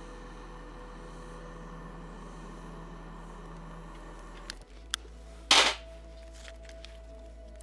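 Soft, sustained background music, then a couple of sharp clicks and one short, loud hissing burst about five and a half seconds in, as a lighter is put to twigs in a small wood-burning camp stove.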